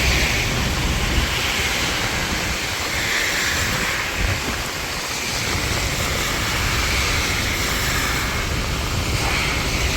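Strong wind buffeting the microphone, a steady low rumble, over the even hiss of heavy rain.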